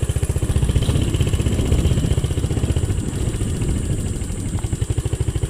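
Motorcycle engine running steadily, with a rapid, even low beat.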